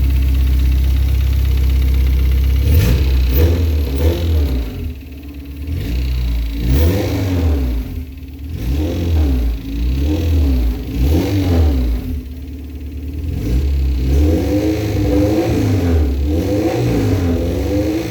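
Honda K24 inline-four engine idling, then revved up and down several times from about three seconds in. It is being run to show a timing chain noise that persists after a new aftermarket tensioner.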